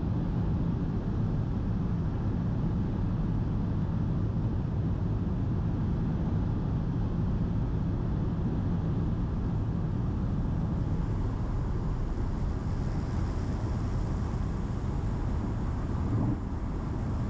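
Steady low drone of a small propeller airplane in flight, engine and airflow noise heard from inside the cabin, with a slight change near the end.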